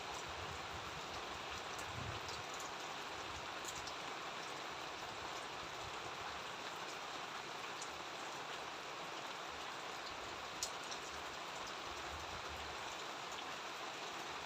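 Steady rain falling, an even hiss with scattered drop ticks and one sharper tick about ten and a half seconds in.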